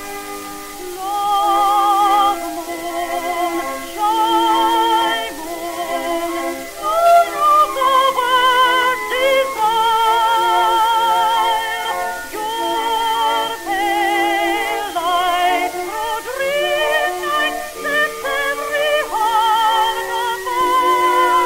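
Slow music: a high melody in long held notes with a strong vibrato over sustained chords, with no bass.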